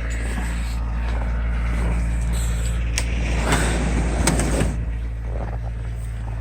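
Engine running steadily at a constant low hum, with a few knocks and rustling noises between about three and five seconds in.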